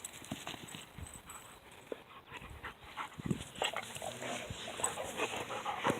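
Black Labrador puppies making faint, short, scattered dog sounds close by, mixed with small clicks and knocks.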